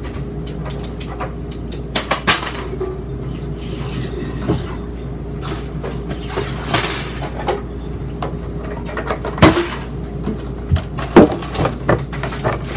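Large plastic water jug, partly filled with water, being flipped and landing on a countertop: a series of sharp knocks and clatters a few seconds apart, over a steady low hum.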